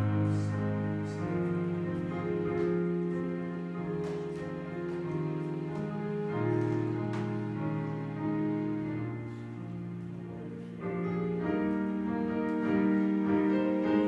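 Slow piano music: held chords change every second or two, with a quieter stretch before fuller chords come in about eleven seconds in.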